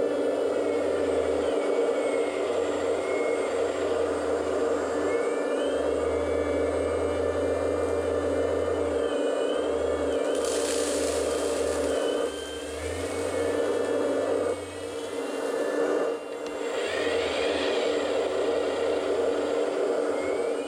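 Electric hydraulic pump of a 1/14 Kabolite 970 RC excavator running steadily, with a thin whine gliding up and down in pitch as the boom, stick and bucket move. About ten seconds in, gravel pours from the tipped bucket into a dump truck bed with a brief hiss.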